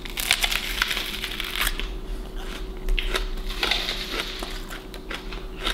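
A whole raw onion crunching as it is bitten into, then crunching in irregular strokes as it is chewed.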